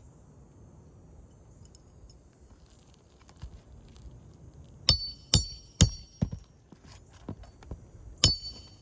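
A metal roofing tool striking and clinking against metal while working loose asphalt shingles: sharp, ringing metallic clinks, three in quick succession about five seconds in and one more near the end, with a few fainter taps between.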